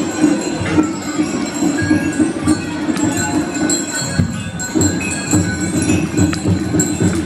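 Music playing with bells jingling over it as a four-horse draft team in decorated harness passes, pulling a festival wagon.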